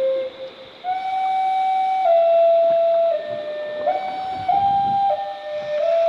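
Native American flute playing a slow melody of long held notes, each lasting about a second and stepping up and down. After a short pause near the start, the melody picks up again just under a second in.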